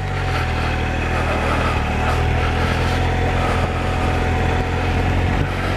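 Triumph Explorer adventure motorcycle's three-cylinder engine running steadily while the bike is ridden, rising slightly in level in the first half second.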